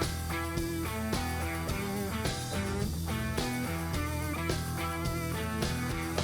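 Background instrumental music led by guitar, with a steady bass and a regular beat.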